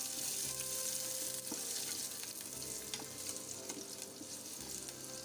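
Chopped shallots, garlic, ginger and dry red chillies sizzling gently in a little oil in a stainless steel pan on low heat, with a wooden spatula scraping and tapping against the pan as they are stirred.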